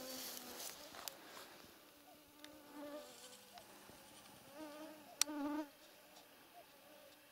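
Flying insects buzzing close past the microphone in several passes that rise and fade. There is a short rustle at the start and a sharp click about five seconds in.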